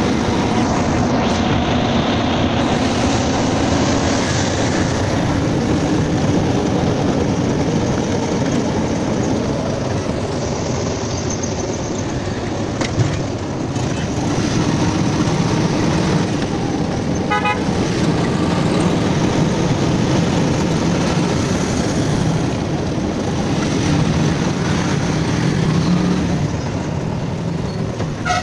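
Steady engine and road noise heard from inside a moving auto-rickshaw, with vehicle horns tooting in the surrounding traffic.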